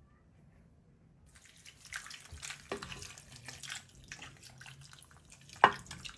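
Blended lime juice poured from a plastic food-processor bowl into a clay pot of cut limes. It splashes and trickles unevenly from about a second in. A single sharp knock comes near the end.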